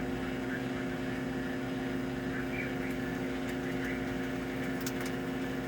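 Farberware voice-controlled microwave oven running while it cooks: a steady, even hum with a strong low tone.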